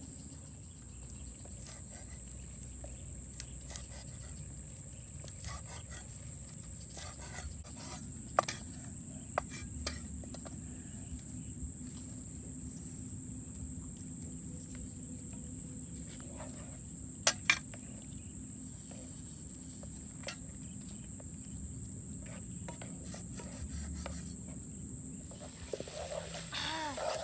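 Scattered sharp knocks of a cleaver on a wooden chopping board over a steady high-pitched insect drone. Near the end, a frying pan of pork being stirred with a stick over the fire.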